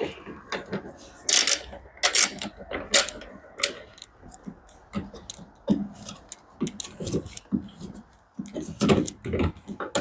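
Irregular metallic clicks, clinks and knocks of a socket wrench, screws and sheet-metal parts being handled while the dryer's blower housing is unbolted.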